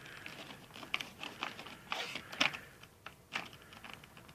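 Packaging being pulled off a boxed die-cast model airliner by hand: irregular crinkles, rustles and clicks, with sharper snaps about two and three seconds in.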